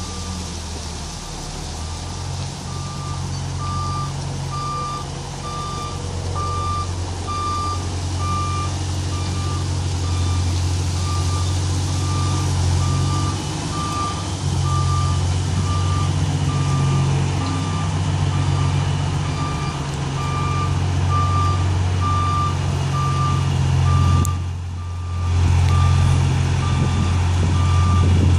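Peterbilt 379 semi-truck's diesel engine running steadily as it backs up, with a backup alarm beeping about once a second over it. The engine sound briefly drops away near the end.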